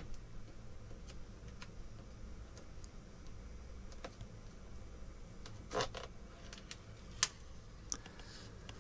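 Scattered light clicks and ticks from hands handling a benchtop digital storage oscilloscope while it powers up, over a low steady hum. The loudest is a sharp single click about seven seconds in.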